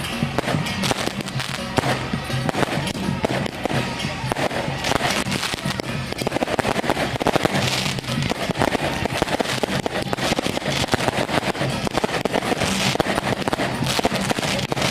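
A string of firecrackers going off in a rapid, continuous crackle, with music playing along underneath.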